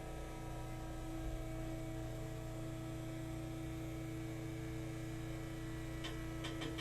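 The electric lift motor of a motorized chiropractic table raising the patient upright, a steady hum. A few clicks come just before it stops abruptly near the end.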